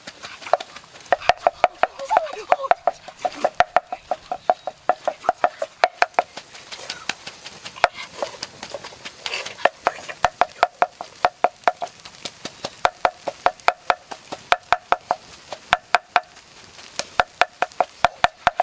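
Wooden pestle pounding in a mortar: a rapid run of sharp knocks, about three to four a second, pausing briefly a couple of times.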